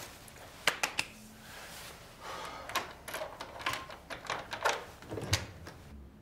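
A run of sharp clicks and rattles from a door's lock and handle as the door is unlocked and opened.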